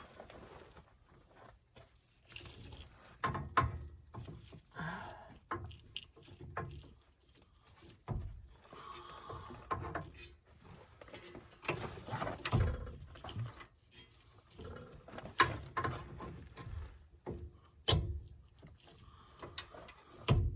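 Scattered metallic knocks, clicks and scraping as a C3 Corvette's shock absorber is turned and worked by hand onto its mounting bolt.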